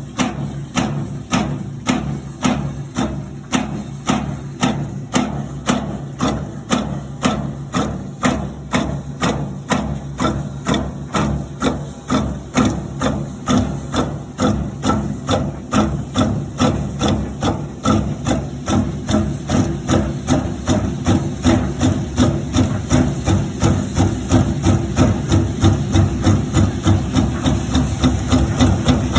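Maytag washing machine running with a repeated knock, about two a second and quickening slightly toward the end, over a steady motor hum. The knock is the abnormal noise the owner is concerned about.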